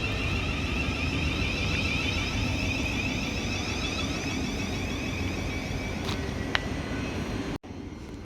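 Class 700 electric multiple-unit train running at the platform, a low rumble under a steady high whine from its traction equipment that slowly fades. The sound cuts off suddenly a little before the end and comes back quieter.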